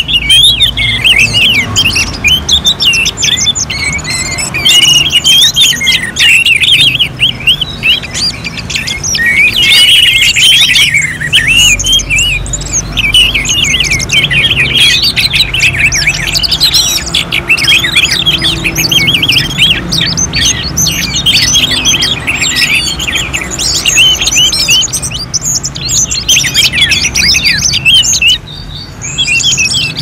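Several orange-headed thrushes singing at once, like a contest chorus: a dense, unbroken stream of quick, varied phrases.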